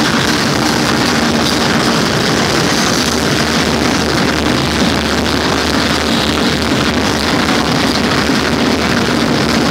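Loud, steady rave music from a party sound system, heard as a dense wall of sound.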